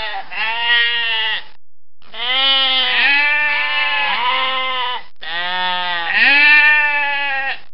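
A goat bleating: three long, wavering bleats one after another, with short breaks between them.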